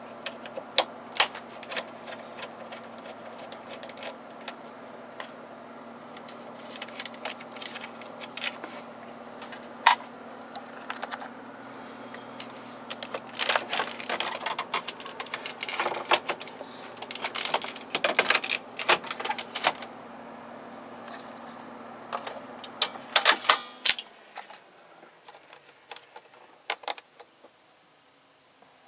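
Plastic clicks, taps and snaps as the instrument cluster's housing is handled and worked loose, most busily in the middle and again near the end, over a steady low hum that stops about three-quarters of the way through.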